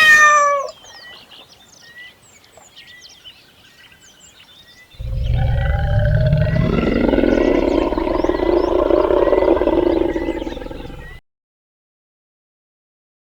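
A loud, deep animal roar starts about five seconds in, lasts about six seconds and cuts off abruptly. Before it there is a short falling animal call at the very start and faint repeated bird chirps.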